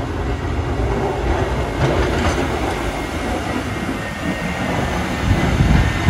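Snow plow truck passing, a heavy rumbling and scraping noise that swells to its loudest near the end, as the plow pushes snow along the road and throws it onto the cleared driveway.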